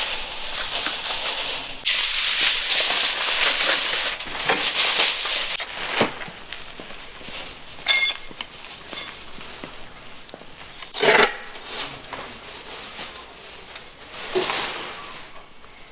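Aluminium foil crinkling and rustling as it is pulled off the roll and handled over a tray for the first few seconds, followed by a few scattered sharp knocks.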